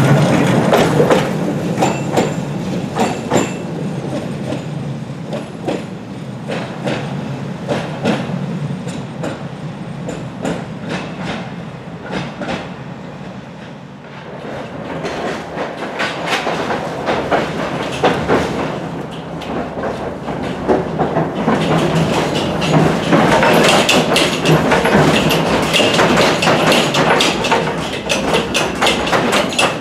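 Tatra T3 tram wheels clattering and knocking over worn track as it runs past close by. The clatter fades to its quietest about halfway through, builds again, and from about two-thirds of the way in turns into a brighter, harsher rattle heard from inside a moving tram car.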